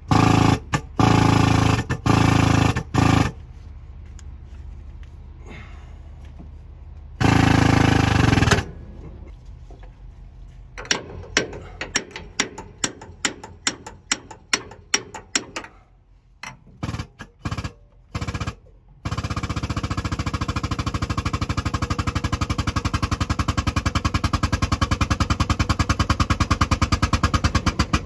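Hydraulic pump powering the bushing-press cylinder. It runs in a few short loud bursts, then a quick series of clicks, and from about two-thirds in a steady rapid pulsing that grows slightly louder as the cylinder presses the cab bushing.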